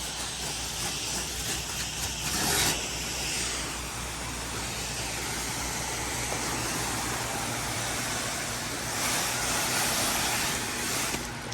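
Pressure washer engine running steadily under the hiss of a spray wand applying a sodium hypochlorite mix, so the surface can soak. The spray gets louder around two and a half seconds in, and again from about nine to eleven seconds.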